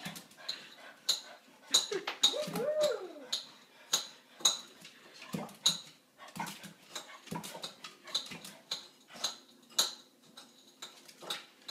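Dishes clinking and clattering at a kitchen sink in quick, irregular clicks, while a pug gives a short whine about two and a half seconds in.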